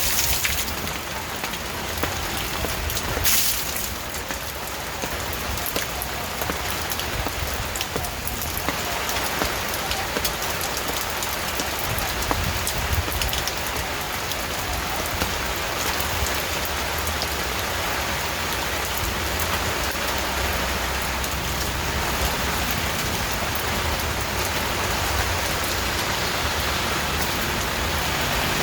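Steady rain falling on a surface, with scattered individual drop hits and one sharper hit about three seconds in, over a low rumble.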